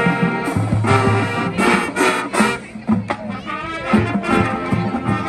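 High school marching band playing, with brass (trumpets and trombones) carrying the tune over drums.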